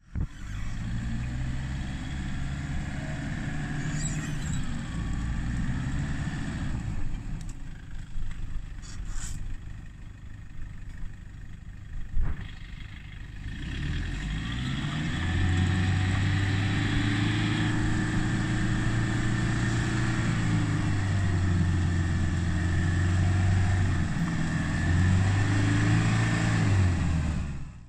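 Toyota Hilux camper's engine straining through deep muddy ruts. It runs at moderate revs, eases off for several seconds with a single knock, then is held at higher revs from about halfway, dipping briefly near the end.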